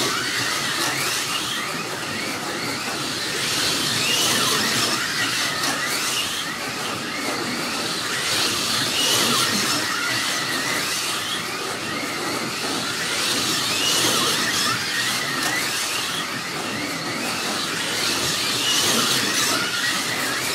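Several slot cars running on a multi-lane track: a continuous high electric-motor whine and hiss from the cars. It swells and fades about every five seconds as the cars come round past the microphone.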